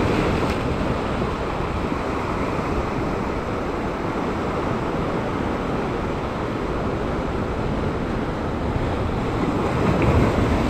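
Sea waves surging and washing over a rock ledge, with wind blowing across the microphone; a slightly louder surge near the end.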